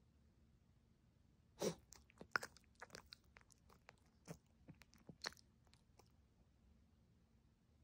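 Puppy chewing, with faint, scattered crunches and clicks from about a second and a half in until about six seconds in; the loudest comes first.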